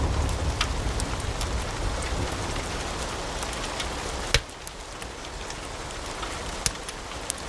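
Logs burning in a fireplace, crackling with scattered sharp pops over a steady low rush. The loudest pop comes about four seconds in, and the low rush is quieter after it.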